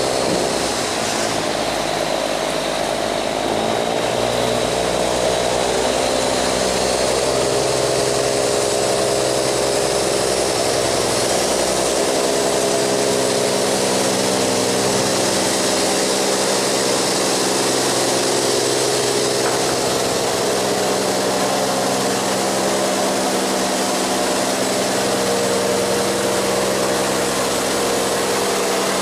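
A sand barge's diesel engine running steadily as the loaded barge passes close by, its pitch shifting slightly now and then, over a hiss of water churning between the hull and the wall.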